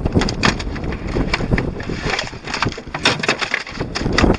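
Wind buffeting the microphone on an open fishing boat, with irregular sharp knocks and clicks of gear and handling on deck.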